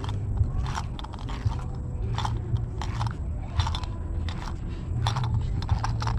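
Irregular crunchy clicks and rustling from close handling of a slingshot fishing rig and its reel, over a steady low rumble.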